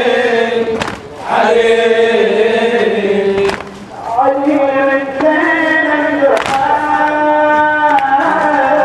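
Male devotional chanting in Arabic, held long notes in phrases of a few seconds each, with a sharp beat about every three seconds.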